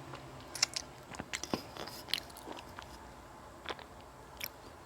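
Close-miked mandarin tangerine, with scattered soft wet clicks and small crackles, a few a second, as the fruit and its segments are worked by mouth and fingers.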